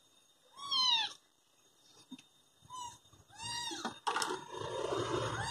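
A young bottle-fed kitten meowing three times: thin, high calls that rise and fall in pitch, the middle one short. A rougher, noisier stretch follows near the end.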